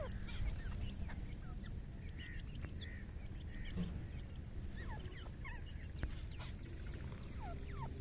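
Faint bird calls: scattered short, falling chirps over a low steady rumble.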